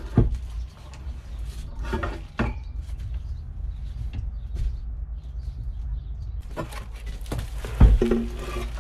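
Scattered knocks and clunks of a wooden table top being handled and set down in a van, the loudest a heavy thump near the end, over a steady low rumble.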